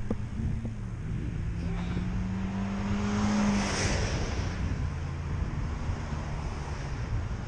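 A motor vehicle passing close by: its noise swells to a peak about three and a half seconds in, then fades. Underneath runs a steady low rumble.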